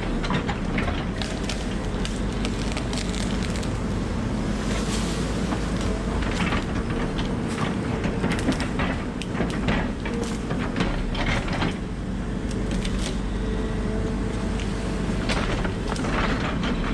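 Volvo 140 excavator's diesel engine running steadily under load while it clears trees, with repeated sharp cracks and snaps of breaking wood and branches.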